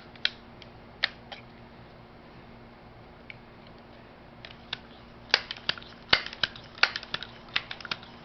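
Crosman 1377 pump air pistol being handled and readied to fire: a few sharp clicks, then from about halfway in a quicker, irregular string of metal and plastic clicks and clacks as it is cocked and pumped. No hiss of air leaking back is heard, the sign that the new air valve is holding.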